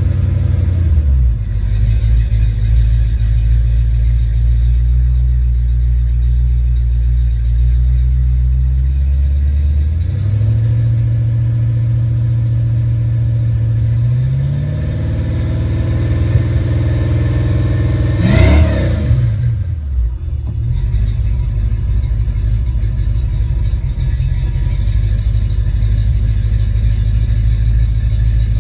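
Ford Mustang 5.0 V8 engine running steadily, its speed raised in two steps and held, then given a quick rev about eighteen seconds in before dropping back to a steady idle. The engine is being revved and held to check that the new engine computer runs it without breakups.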